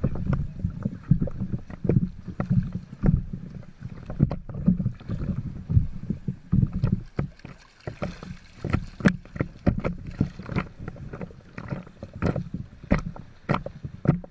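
Sea water sloshing and lapping against a camera held at the water surface, with irregular splashes from swimmers moving close by.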